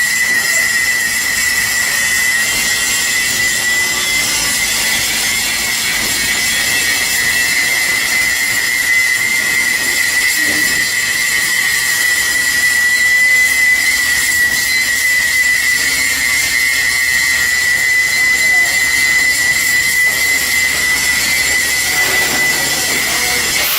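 Steady hissing with a constant high-pitched whine from metalworking equipment, running without a break.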